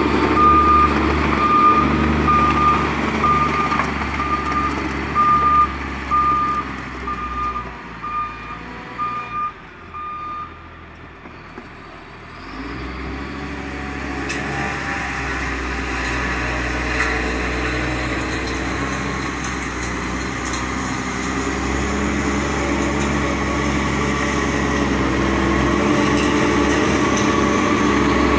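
Prinoth Bison snow groomer's reversing alarm beeping about once a second, fading as the machine moves away. After a quieter spell its diesel engine grows steadily louder as it comes closer.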